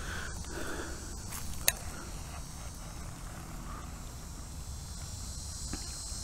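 Insects chirring steadily in a constant high band, over a low rumble. About a second and a half in comes a single sharp click, the loudest sound.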